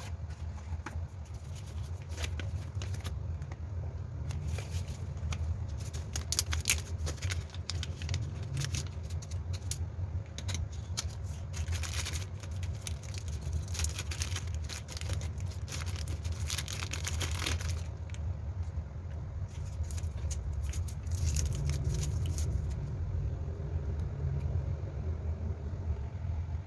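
Crackling packaging and small plastic clicks as a home antigen test kit is handled, over a steady low hum. The crackling is densest near the middle.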